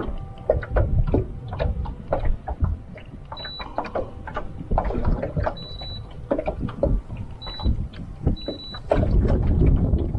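Choppy water slapping and knocking irregularly against a small boat's hull, with wind buffeting the microphone and growing stronger near the end. Four short, high electronic beeps sound during it.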